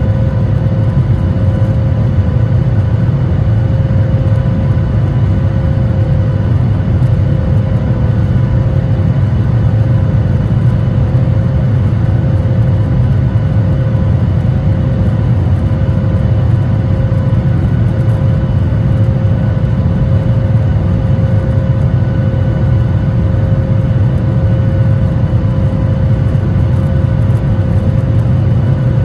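Cabin noise of a Boeing 737 MAX 9 climbing out after takeoff: its CFM LEAP-1B engines make a steady, loud, deep roar, with a constant tone held above it.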